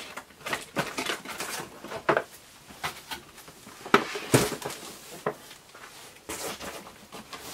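A boxed action figure's cardboard and plastic-window packaging being handled, with scattered rustles and light taps. A couple of sharper knocks come about four seconds in, as the box is set down on a shelf.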